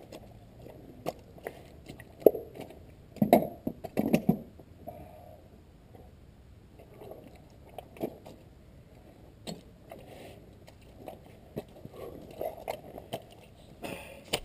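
Footsteps squelching in soft tidal mud as a person in chest waders walks close by. The steps come irregularly, with the loudest a few seconds in and again near the end.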